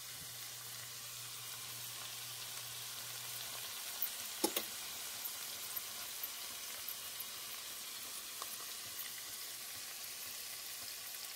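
Escargot frying in a pan with minced garlic and diced peppers: a steady sizzling hiss with scattered pops and crackles, a cluster of louder pops about four seconds in.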